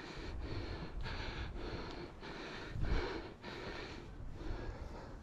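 Heavy huffing and puffing of a hiker climbing steep stairs, hard, quick breaths a little under two a second, breathed through a face mask.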